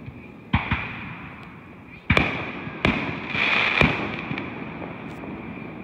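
Fireworks going off: a quick pair of bangs early, then louder bangs about two seconds in and near four seconds. A crackling burst runs between the later bangs, each report trailing off over a moment.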